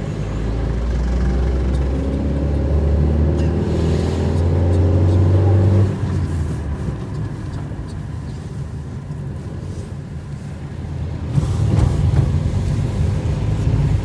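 Car engine heard from inside the cabin while driving, its pitch rising steadily as the car accelerates for about six seconds. It then drops off and runs quieter, and picks up again near the end.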